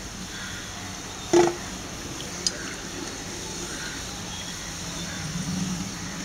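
Hot oil sizzling steadily around kachoris deep-frying while others are lifted out on a perforated steel skimmer, over a low hum. A short knock comes about a second in, and a faint click at about two and a half seconds.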